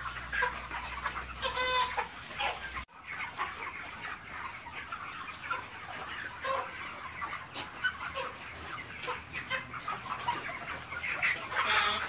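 A large flock of white broiler chickens in a poultry shed, clucking and calling over one another. One louder pitched squawk stands out just before two seconds in, and a busier burst of calls comes near the end.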